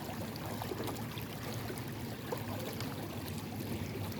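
Creek water running over shallow rapids, a steady rushing wash.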